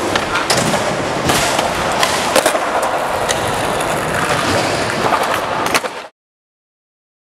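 Skateboards rolling on a concrete floor, the wheels making a steady rolling noise broken by sharp clacks and knocks of the boards. It cuts off suddenly about six seconds in.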